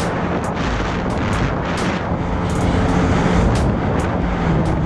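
Jet ski engine running steadily at cruising speed over a rush of water and wind, with short sharp slaps of the hull on the small chop a couple of times a second.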